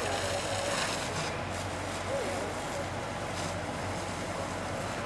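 Steady rushing noise from a burning motorhome fire, with a low, even engine hum underneath.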